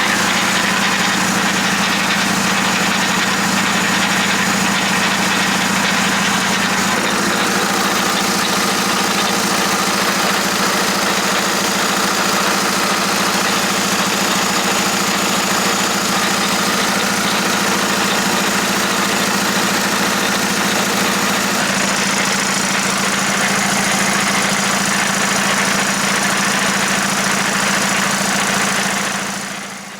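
Volkswagen Jetta SportWagen's TDI diesel running steadily with its freshly rebuilt DSG transmission making a horrible noise. The cause is overlong replacement bolts touching the gears and shaving metal off inside the transmission.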